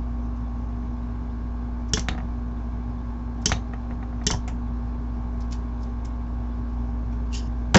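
Metal clicking against the homemade electromagnet made from microwave oven transformer cores as battery power is applied: a few sharp clicks spread over several seconds, the last the loudest, with fainter ticks between, over a steady low hum.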